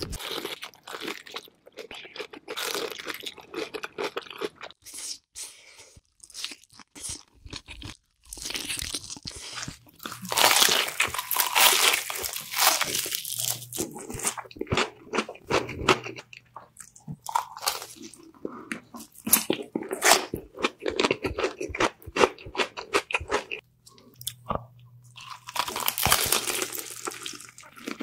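Close-miked eating sounds: chicken being bitten and chewed, with dense irregular crunching, heaviest in bursts about ten seconds in and again near the end.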